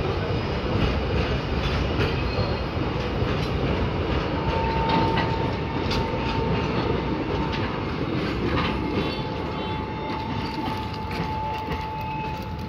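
Container freight train's wagons rolling past at close range, wheels clattering over the rail joints. The rumble eases off after the brake van goes by and the train pulls away. A thin, steady high-pitched squeal joins about four seconds in.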